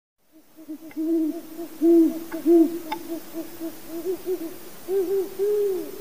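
Great horned owl hooting: a rapid run of short, low hoots, some much louder than others, ending in a longer hoot near the end.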